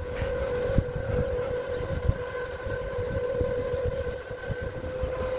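A steady droning hum held at one pitch, over a low rumble: a noise that is irritating.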